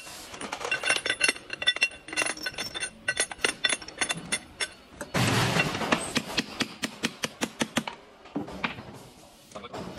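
Steel pins and rollers clinking against one another and the steel housing as they are handled and dropped into the holes of a cycloid reducer, a run of sharp metallic clicks with a brief ringing after each. About five seconds in, a short burst of dense metal rattling; the clinks thin out after about eight seconds.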